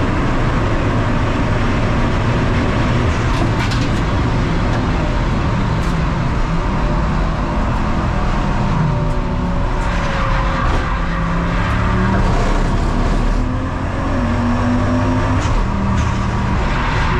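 Race car engine running hard on track, its pitch rising and falling with throttle and gear changes, over steady road and wind noise.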